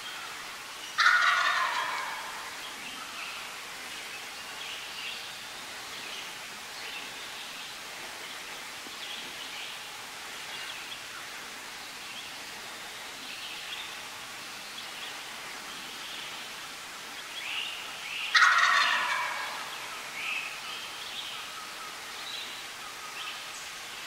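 A wild turkey gobbler gobbling twice, about seventeen seconds apart. Each gobble is loud, starts suddenly and trails off over about a second.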